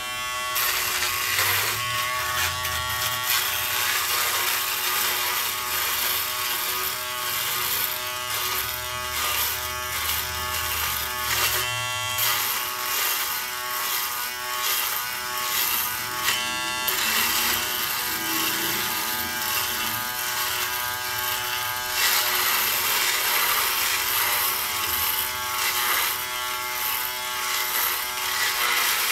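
Remington Wetech PF7580 electric foil shaver running with a steady buzz as it is moved over the stubble on the cheek and jaw, shifting a little in tone now and then as the head moves.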